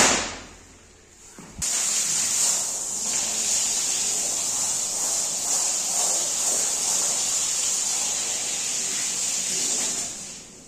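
A sharp knock, then about a second and a half later a pressure washer's water jet comes on suddenly and sprays steadily with a strong hiss onto the rug, stopping near the end.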